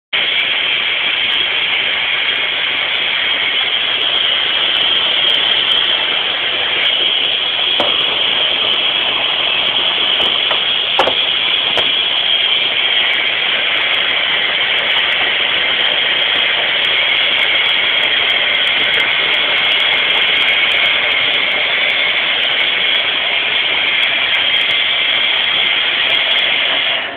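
1992 AEG Lavamat LV36 front-loading washing machine filling with rinse water: a loud, steady hiss of mains water rushing in through the inlet valve, with a couple of faint ticks in the middle. It cuts off sharply at the very end as the fill stops.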